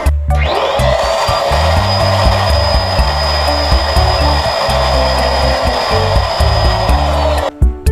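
Electric balloon inflator switched on and running with a steady whine and rush of air, then winding down and cutting off near the end. Background music plays throughout.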